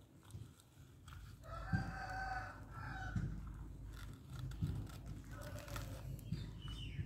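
A rooster crowing, one drawn-out crow about a second and a half in and a shorter call near the end. Low thuds and rustles come from a plastic toy excavator being handled on wood chips.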